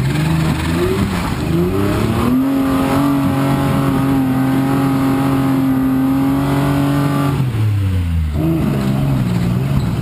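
Off-road 4x4's engine revving as it crawls over rocks: the revs climb about two seconds in, hold high and steady for about five seconds, then drop back.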